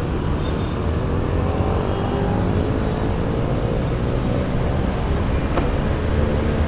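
Street traffic heard on the move: a steady low rumble of engines and wind noise, with an engine's hum rising in pitch over a few seconds in the middle. There is one sharp tick about five and a half seconds in.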